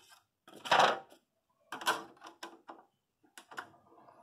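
Plastic clicks and clacks of DVDs being handled at the open disc tray of a Gradiente D-202 DVD player, one disc lifted out and another set down in the tray. A loud clack comes under a second in, followed by several lighter clicks.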